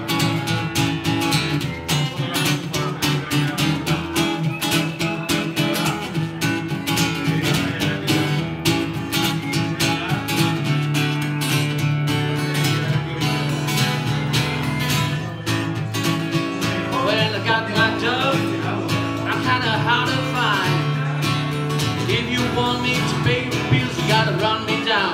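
Acoustic guitar strummed in a steady rhythm of chords, an instrumental break in the song.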